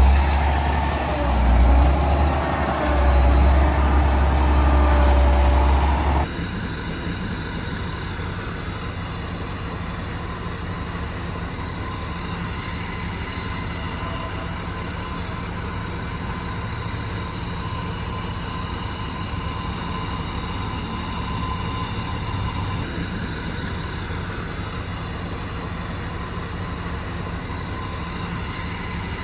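Heavy earthmoving machinery's diesel engine running steadily. For about the first six seconds a louder, deeper rumble is heard, and it cuts off abruptly.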